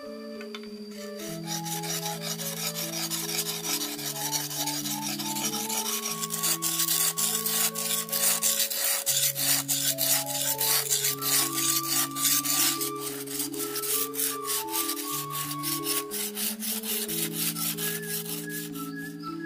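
Rhythmic rasping, scraping strokes, several a second, starting about a second in and stopping shortly before the end, over a simple instrumental melody in the background.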